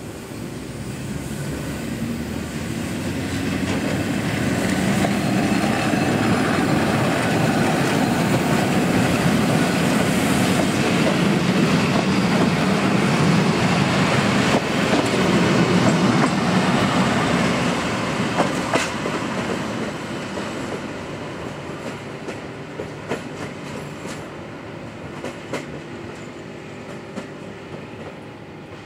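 Electric locomotive E422-0003 and its train of vintage passenger coaches passing, growing louder, staying loud through the middle, then fading as it moves away. A few sharp wheel clicks over the rail joints come in the second half.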